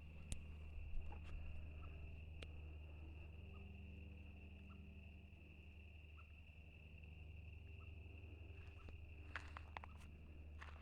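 Faint, steady high-pitched trilling of crickets in a continuous insect chorus over a low hum. Scattered light clicks and crunches, with a cluster near the end.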